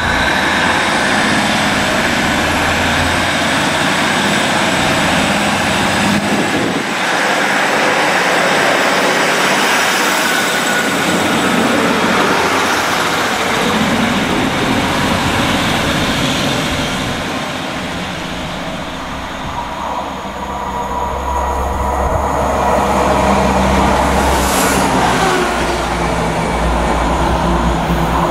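Class 156 Super Sprinter diesel multiple unit pulling out of the platform, its underfloor diesel engines running loud as the carriages pass close by. The noise eases about two-thirds of the way through, then builds again as a second train approaches.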